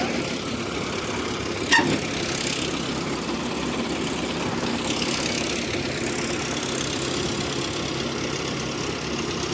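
Heavy-machinery diesel engine running steadily, with one sharp knock a little under two seconds in.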